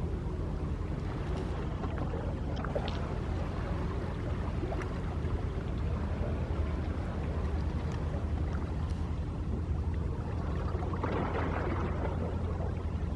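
Small sea waves lapping and splashing, over a steady low rumble; a bigger wash of water comes about eleven seconds in.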